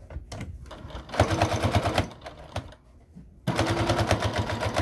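Domestic electric sewing machine stitching a seam in two short runs: a brief burst of rapid, even needle strokes about a second in, a pause, then a longer run starting about three and a half seconds in.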